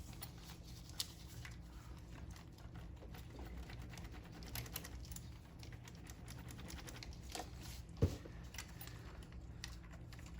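Light scattered clicks and taps of the LS2's fuel rail and Bosch-style fuel injectors being rocked by hand to work them loose from tightly seated ports, with one sharper knock about eight seconds in. A faint steady low hum lies underneath.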